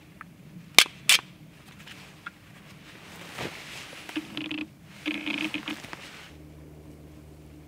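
A bushcraft knife and fire-starting kit being handled by gloved hands: two sharp clicks about a second in, then two short scraping rasps near the middle.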